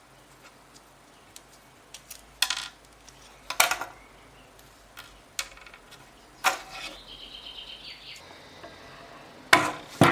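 Workshop handling noises: a handful of sharp knocks and scrapes, with a short rattling squeak about seven seconds in and the loudest knocks near the end.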